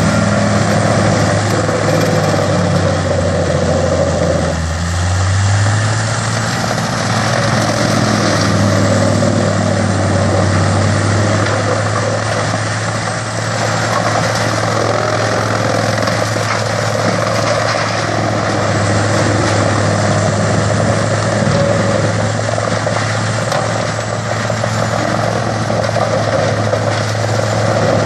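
Tracked horizontal wood grinder working under load as an excavator feeds it wood, heard as a loud, steady diesel engine drone under a constant noise of wood being ground and chips being thrown. The engine note lifts slightly about five seconds in.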